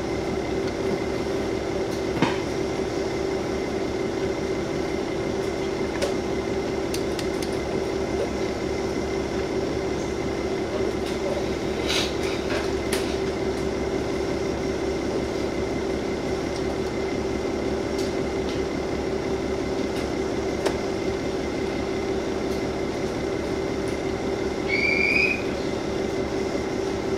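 KiHa 47 diesel railcar standing with its engine idling: a steady hum with a few faint clicks. Near the end comes a short rising chirp.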